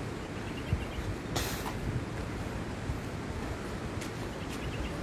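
Wind rumbling on a phone's microphone, with a short hiss about one and a half seconds in.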